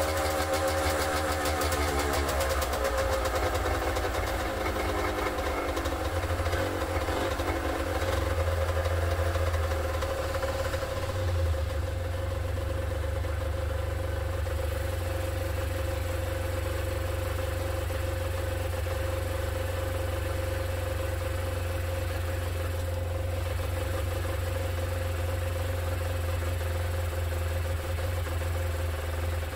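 Honda NS250F two-stroke V-twin running on its stand. The revs fall over the first few seconds, then it settles into a steady idle.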